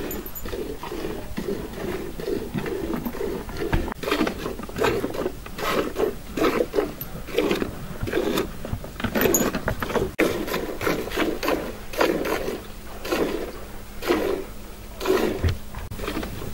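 A cow being milked by hand: streams of milk squirting into a frothy enamel pail in short spurts, about two a second.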